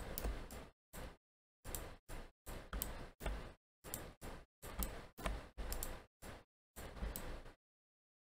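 Computer mouse clicks and key taps while working in 3D modelling software, heard as about a dozen short bursts of faint clicking with gaps of dead silence between them.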